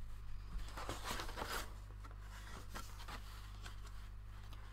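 Paper sheets rustling and sliding as they are handled and smoothed by hand, busiest in the first couple of seconds, with a few short rustles later, over a faint steady low hum.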